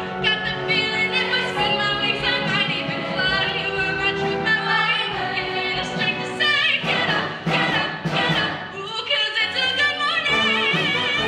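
Women's show choir singing with a soloist on a handheld microphone leading the group over accompaniment; near the end a held note wavers with vibrato.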